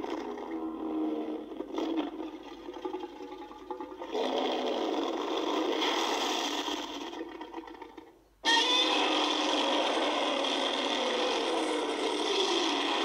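Heisei-era Godzilla roar sound effects played back to back. One fades away about eight seconds in, and the next starts abruptly, its pitch sliding downward.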